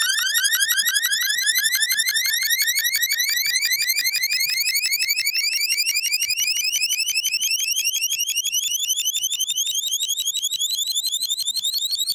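Synthesized magic wand sound effect: a rapid, even stream of short rising chirps whose pitch slowly climbs, like a sparkly, alarm-like warble.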